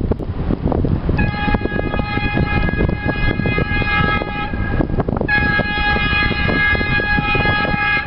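Diesel locomotive's multi-tone horn sounding two long blasts, the first starting about a second in and the second about five seconds in, over a steady low rumble of wind on the microphone.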